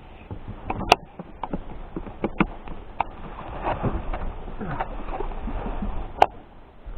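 Irregular sharp clicks and knocks, with two louder cracks about a second in and near the end, over a low steady rumble.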